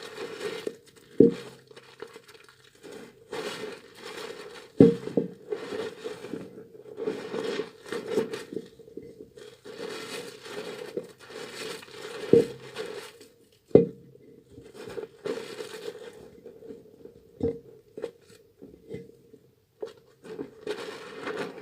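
Hands lathering a softened, water-soaked bar of tar soap: irregular wet rubbing and squishing of the soap and foam, broken by a few sharp knocks.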